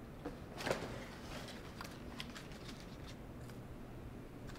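Faint sounds of a person eating pizza at a table: a few soft clicks and rustles over low room hum, with one slightly louder rustle about a second in.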